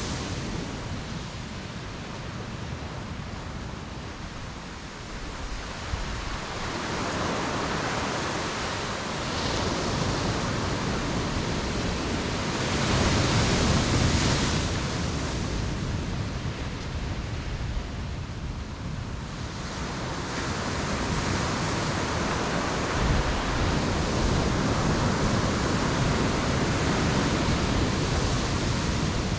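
Ocean waves breaking and washing up the shore, swelling and ebbing in slow surges, the biggest about halfway through.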